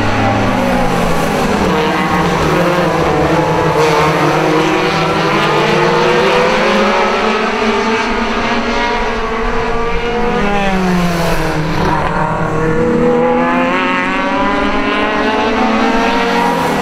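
A pack of National Hotrod race cars lapping an oval, several engines at high revs overlapping. The engine pitch falls and climbs again as the cars slow for the bend and accelerate out, most clearly about eleven seconds in.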